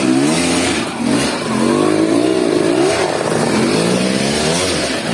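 Trail motorcycle engine running under changing throttle, its pitch rising and falling several times as it is revved and eased off.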